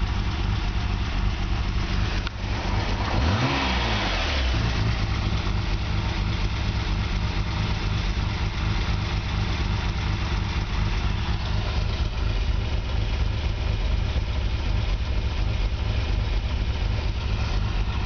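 Nissan Skyline R32 GT-R's RB26DETT twin-turbo straight-six idling with a lumpy, uneven beat and a slight misfire. About three seconds in, a single throttle blip makes the revs rise and fall quickly, then it settles back to idle.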